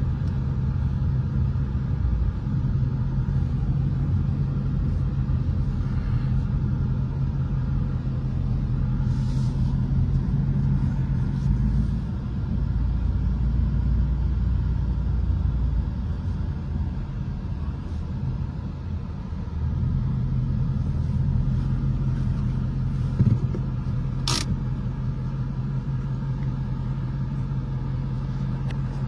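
Ford Mustang's engine droning steadily at low speed, heard from inside the cabin with road noise. The drone eases off for a few seconds past the middle and picks up again, and there is one short sharp click late on.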